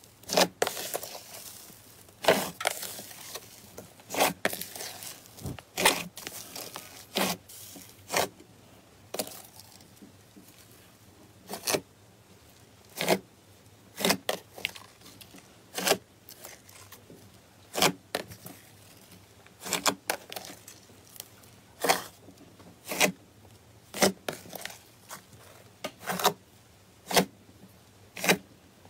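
A fist pressing again and again into a large batch of white fluffy slime, with sharp crackling pops about once a second, often two in quick succession.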